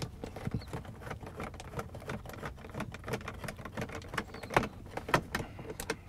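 Irregular small clicks, taps and scrapes of a nut driver with a T20 Torx bit turning out the screws that hold an instrument cluster to a plastic dash.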